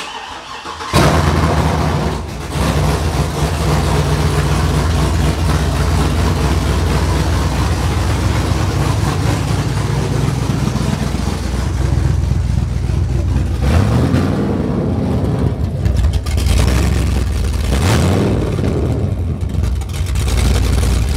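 2008 GMC Sierra Denali 6.2-litre V8, just fitted with a BTR aftermarket camshaft, valve springs, lifters and pushrods, catches and starts about a second in on its first start after the cam swap, then idles steadily. The throttle is blipped twice in the second half.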